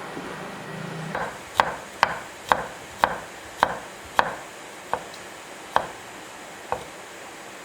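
A series of about nine sharp knocks, roughly two a second, spacing out and getting weaker towards the end.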